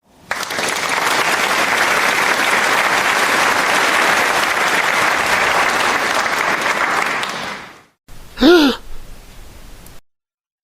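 Polite applause from a crowd, a steady patter of clapping that cuts off abruptly after about seven and a half seconds. About a second later comes a single short gasp.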